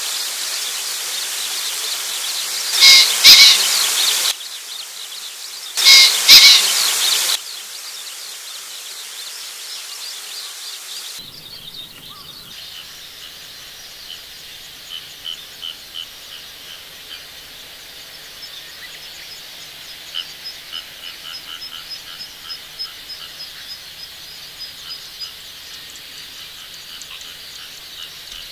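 Male green pheasant giving its harsh two-note crow twice, about three seconds apart, each with a burst of wing-beating in its courtship display. After that, only faint rapid rhythmic chirping in the background.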